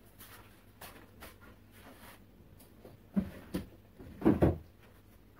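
A few dull thumps and knocks in a small room, the loudest a close pair a little after four seconds in, with faint light clicks before them.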